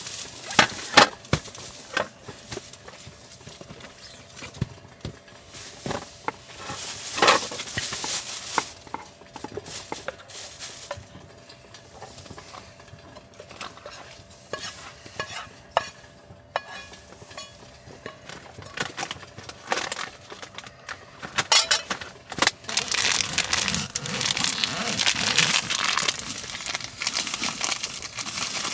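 Camp cookware and utensils clinking and scraping in scattered sharp knocks. About two-thirds of the way through, a steady sizzling hiss of food frying in a pan starts up.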